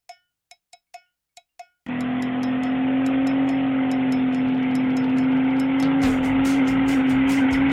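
Intro music: a light ticking beat at about four ticks a second, then, about two seconds in, a loud steady drone with a low hum comes in suddenly under the beat, which turns heavier near the end.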